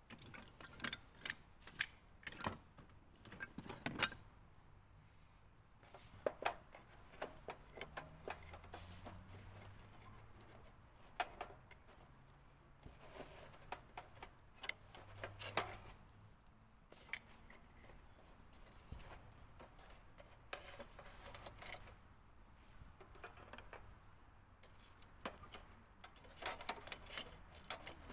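Light clinks, taps and knocks of camp cookware and utensils being handled, irregular and scattered throughout, with a few sharper knocks.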